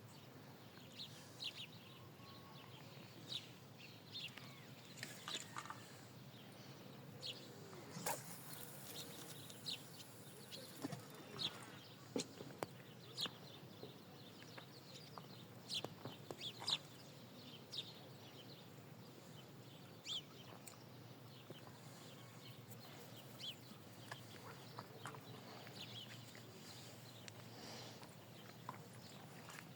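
Small birds chirping at dawn: faint, scattered short high calls, irregular throughout.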